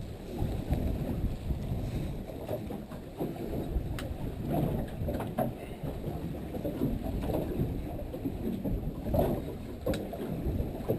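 Uneven rushing noise of wind and sea aboard a small fishing boat, with a few sharp knocks about one, four and nine seconds in.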